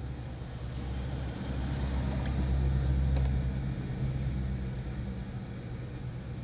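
Low mechanical rumble that swells about a second and a half in and eases off again, with two faint clicks in the middle.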